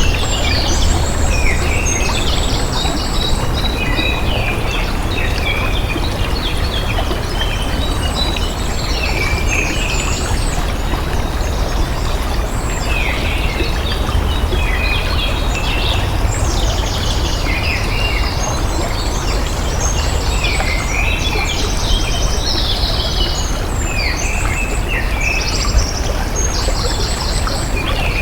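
Running water, a steady rush, with many birds chirping and trilling over it throughout.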